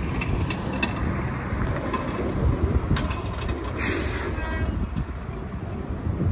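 MBTA city bus engine rumbling low as the bus pulls slowly away from its stop, with a short hiss of air a little before four seconds in.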